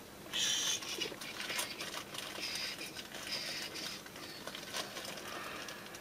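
Clear plastic parts bag holding small tactile switches, rustling and crinkling as it is handled, with small clicks and rattles from the parts. It comes in short irregular bursts, the loudest about half a second in.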